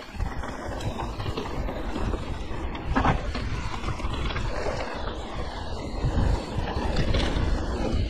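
Mountain bike rolling down a dirt forest singletrack: wind buffeting the handlebar camera's microphone over the hiss of tyres on dirt and the rattle of the bike over bumps, with a sharper clatter about three seconds in.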